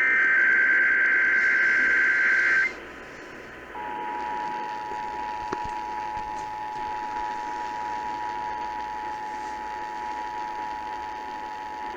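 Emergency Alert System test heard over a radio broadcast. It opens with a SAME digital header burst, a buzzy warble switching between two pitches, lasting about two and a half seconds. About a second later the EAS two-tone attention signal begins: two steady tones sounded together and held for about eight seconds, marking the start of the monthly test.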